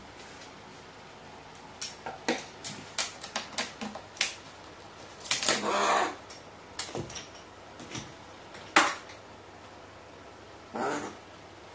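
Pet crow's beak tapping and clicking on hard objects: a quick run of sharp taps, then a longer, louder sound near the middle and a few single knocks.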